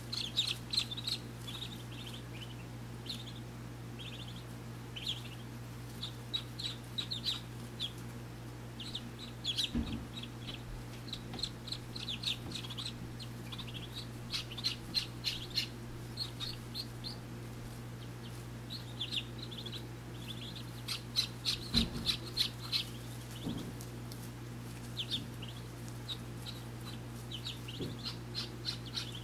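Muscovy ducklings peeping in quick clusters of short, high chirps while brooded under the hen, over a steady low hum.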